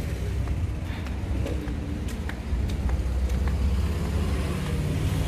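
Low, steady rumble of street traffic, with light footsteps ticking about twice a second as someone walks along the sidewalk.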